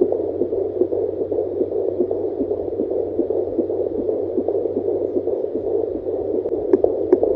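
A fetal heartbeat at about 19 weeks, heard through the speaker of a handheld fetal Doppler (Angel Sounds). It is a fast pulse of about two to three beats a second, like a little trot, over a steady hiss and hum. A few sharp clicks come near the end.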